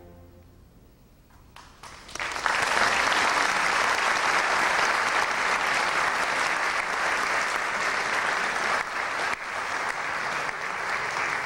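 Concert audience applauding: after a second or two of quiet, a few scattered claps, then full, steady applause from about two seconds in.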